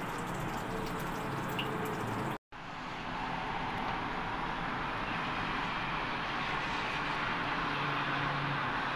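Chicken rendang sizzling and bubbling in a hot wok: a steady hiss with fine crackles, cutting out for a moment about two and a half seconds in and going on as an even hiss.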